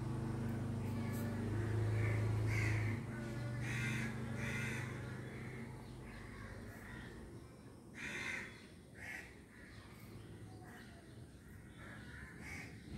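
Crows cawing, several separate caws spaced a second or more apart. Beneath them a low steady hum, loudest in the first three seconds, fades out by about six seconds in.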